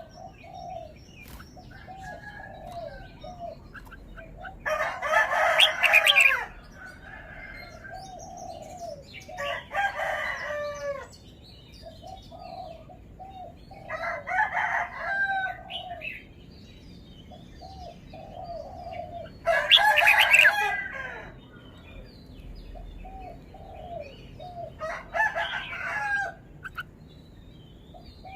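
Red-whiskered bulbul singing: a loud warbling song phrase about every five seconds, with softer short chirping notes in between.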